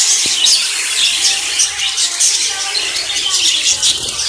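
Many caged small birds chirping together in a dense, continuous chorus of short, high chirps.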